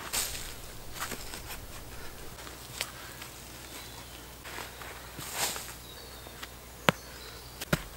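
Loose, dry soil being scraped and scooped by gloved hands and loosened with a pole while a small hole is dug: short gritty scrapes, the biggest right at the start and again past halfway. A few sharp knocks stand out, the loudest shortly before the end.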